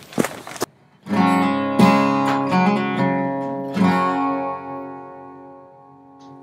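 Outro music: acoustic guitar strumming several chords, the last one left ringing and slowly fading away. A couple of sharp knocks come just before the first chord.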